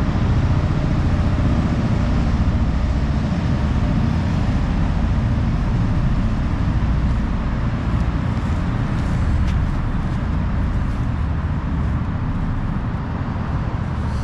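Wind buffeting the microphone outdoors: a steady, loud low rumble that flutters unevenly.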